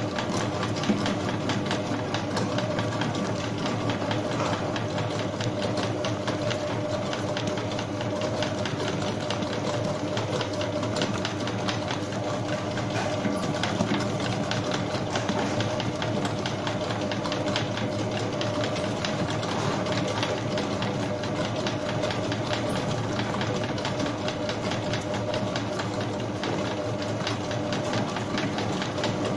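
Bakery spiral mixer running, its motor and spiral hook kneading a full bowl of bread dough in a steel bowl. It gives a steady mechanical hum with a fast, even rattle.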